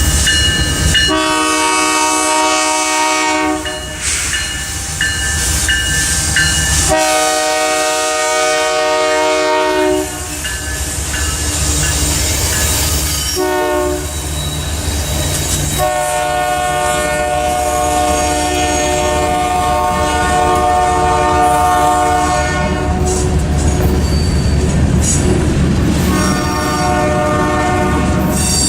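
Diesel locomotive air horn sounding the grade-crossing signal: two long blasts, a short one, then a long drawn-out blast, with another blast starting near the end. A continuous rumble of the passing train's wheels on the rails runs underneath.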